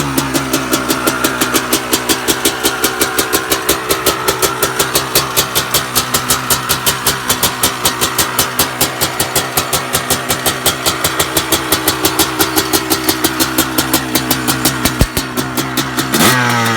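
2002 Honda CR250R two-stroke engine idling cold with a steady pulsing beat, then a quick blip of the throttle near the end.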